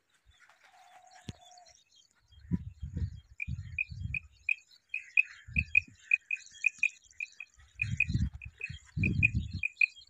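Quail calling: short, high whistled notes repeated in quick pairs and triplets, starting about three seconds in. Irregular low rumbles come and go beneath them.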